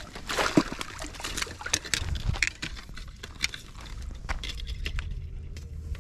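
Footsteps in slide sandals on dry dirt and grass: a quick run of scuffs and clicks, busiest in the first couple of seconds and sparser after.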